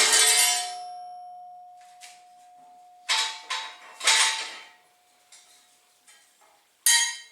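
Metal parts being handled and knocked together: a loud clank at the start leaves a clear ringing tone that fades over about three seconds, followed by three more clanks about three, four and seven seconds in.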